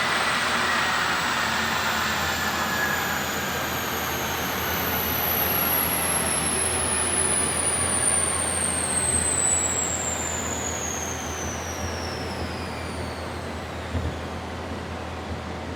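2019 Mustang Bullitt coasting down on a chassis dyno after a full pull in fourth gear: the car and dyno rollers spin down, with whines falling slowly in pitch and the noise fading. A light knock comes near the end.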